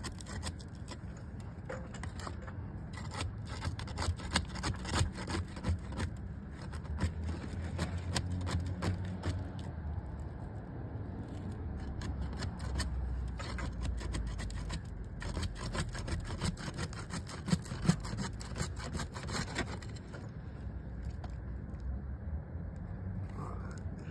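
Asphalt shingle being unsealed from the roof: irregular crackling and scraping clicks as the tab's adhesive seal strip is broken loose, over a steady low rumble.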